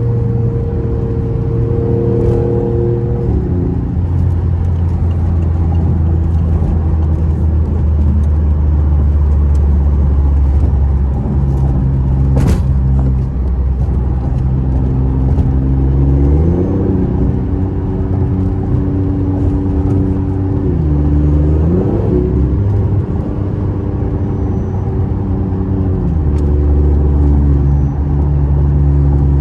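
BMW i8's turbocharged three-cylinder engine, with a modified exhaust, running under way at speed. Its note steps down about three seconds in, swells up and back down twice in the middle, and drops again near the end. A single sharp click comes about twelve seconds in.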